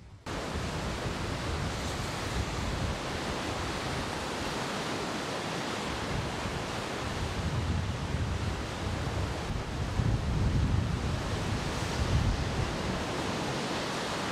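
Heavy ocean surf breaking over rocks: a steady rush of crashing waves that cuts in suddenly at the start, with louder surges about 8, 10 and 12 seconds in, and wind on the microphone.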